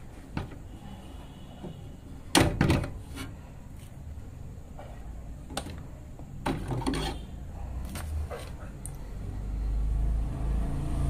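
Clicks and knocks of a DDR3 memory module being unlatched and pulled from its slot on a desktop PC motherboard, with fingers knocking against the case and parts; the loudest cluster of knocks comes about two and a half seconds in, another around six and a half seconds. A low rumble builds near the end.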